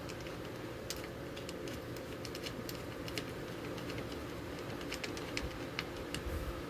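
Light, irregular clicks and taps of hands and tools working on parts of an old radio during disassembly, over a steady low hum.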